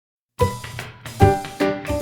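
Background music with keyboard notes and a beat, starting about half a second in after a moment of dead silence.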